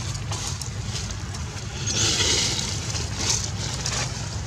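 Steady low wind rumble on the microphone, with a brief hissing rustle about two seconds in and a couple of faint clicks after it.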